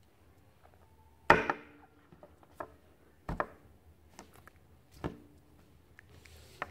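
Three sharp knocks about two seconds apart, the first the loudest and ringing briefly, with lighter clicks between them.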